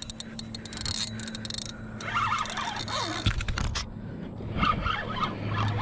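Fishing reel clicking irregularly as a hooked catfish is fought on the line, over a faint steady hum.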